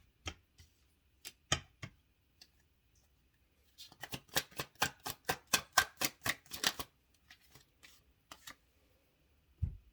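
Tarot cards being handled and shuffled: a few scattered card clicks, then a quick run of rapid card snaps lasting about three seconds, then a few more clicks.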